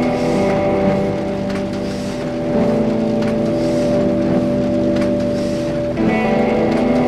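Experimental music composed from printing-press and machinery sounds: a held chord of steady tones that shifts every two to three seconds, over a soft repeating mechanical pulse of knocks and hiss.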